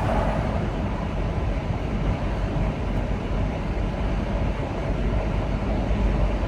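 Steady low rumble of a vehicle in motion, road and engine noise with no distinct events.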